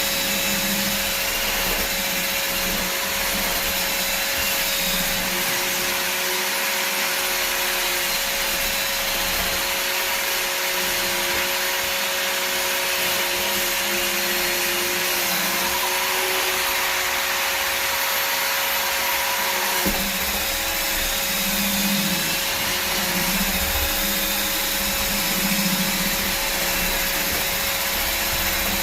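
Evolution R225DWS drywall sander running steadily with its dust extraction: a continuous vacuum-like rush of air over a steady hum.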